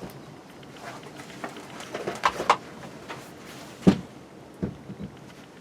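Light knocks and clatter of split firewood being handled, with one sharper wooden knock about four seconds in.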